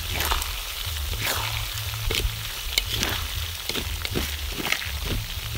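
Frog pieces sizzling as they fry in oil in a metal wok, stirred with a metal spatula that scrapes and clacks against the pan in quick repeated strokes.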